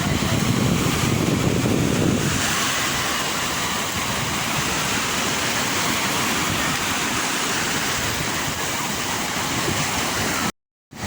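Sea waves washing on the shore as a steady rush of surf, with a heavier low rumble in the first two seconds. The sound drops out completely for about half a second near the end.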